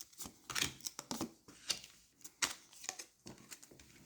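Tarot cards being handled and laid out on a table: a string of short, irregular soft clicks and rustles.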